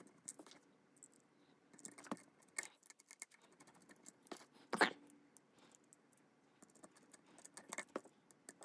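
Faint, scattered clicks and taps of a small screwdriver and fingers working the HomePod Mini's plastic base plate as its screws are driven in, with one louder click near the middle.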